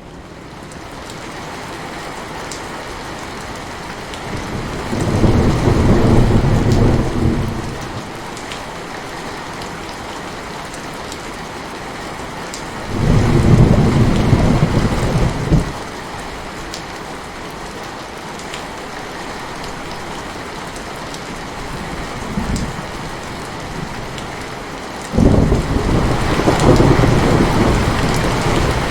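Heavy rain falling steadily, with low rolling thunder three times: about five seconds in, about thirteen seconds in, and again near the end, each rumble lasting two to three seconds or more.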